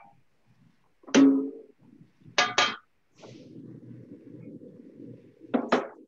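Metal cookware clanking: a loud ringing clang about a second in, two quick clinks near the middle, and two more near the end. A low steady hum runs between them.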